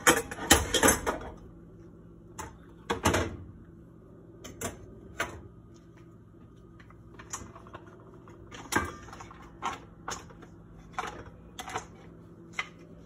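Irregular kitchen clatter: sharp knocks and clacks of a dish and utensils being handled on a counter, loudest in the first second and around three seconds in, over a faint steady hum.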